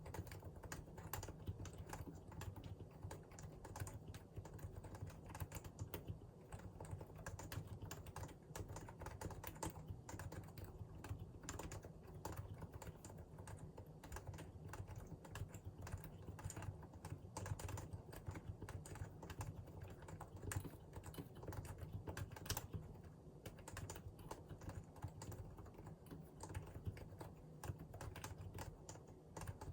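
Continuous fast typing on a Realforce R2 PFU Limited Edition keyboard with Topre electrostatic capacitive switches. Keystrokes follow one another in a dense, unbroken stream.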